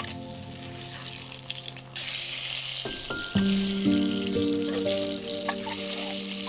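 Hot oil sizzling in a stainless steel pan as peeled boiled eggs are added for frying, the sizzle growing louder about two seconds in. Background music with sustained notes plays over it.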